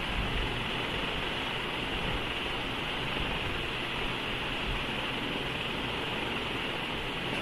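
Steady, even hiss of background noise with no distinct events: the noise floor of a laptop or headset microphone recording a quiet room.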